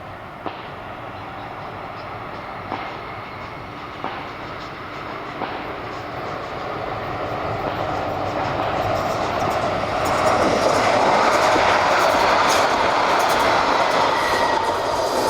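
Gold Coast Light Rail tram approaching, the running noise of its wheels on the rails growing steadily louder and at its loudest over the last few seconds, with a few sharp clicks in the first half.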